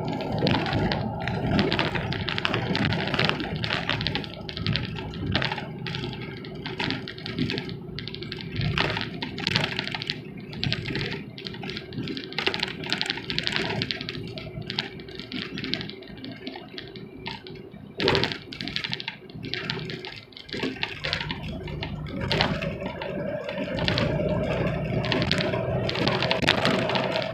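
Semi-truck cab interior at highway speed: a steady engine drone and road noise with constant rattling and clattering from the cab, and one sharp knock about 18 seconds in. The engine note rises near the end.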